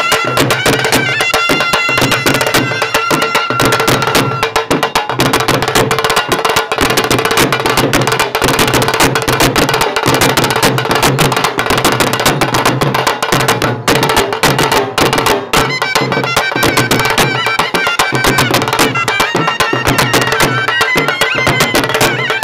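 Instrumental folk-style background music: a steady held drone note under a melody, with fast, busy percussion.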